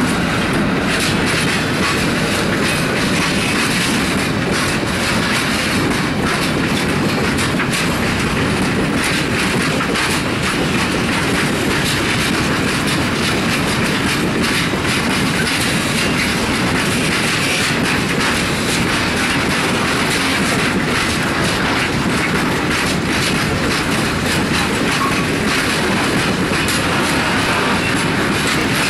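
Freight train of open goods wagons rolling steadily past, wheels clattering over the rail joints in a continuous clickety-clack.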